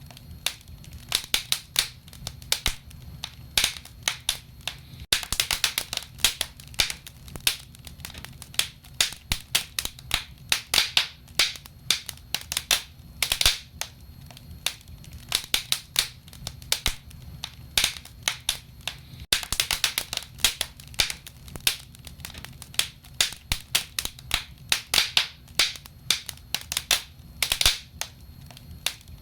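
Wood fire burning in a fireplace, crackling and popping: many sharp, irregular pops, often in quick clusters, over a low steady rumble of the flames.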